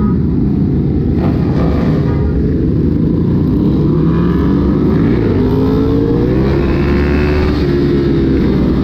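Many motorbike engines running together in packed street traffic, loud and steady, with revs rising and falling.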